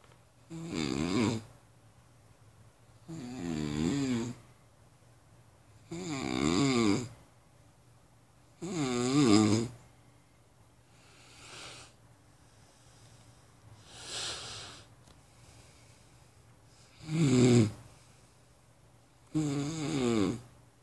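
Heavy snoring: a string of snores, each about a second long with a fluttering pitch, coming every two to three seconds. In the middle comes a longer lull with two fainter breaths, then two more heavy snores.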